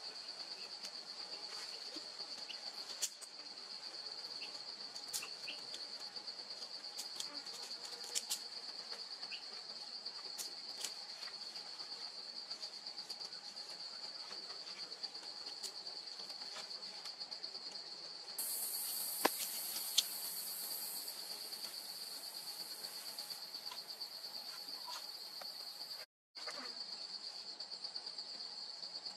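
Forest insects chirring steadily in a high, fast-pulsing trill. A second, higher-pitched insect buzz joins about 18 seconds in and fades a few seconds later. Occasional faint clicks and taps sound over it, and the sound drops out briefly about 26 seconds in.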